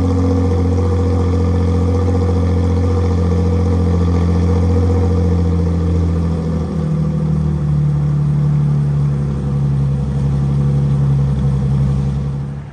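Nissan 350Z V6 engine with an aftermarket exhaust running steadily after a jump-started cold start. The engine note changes about halfway through.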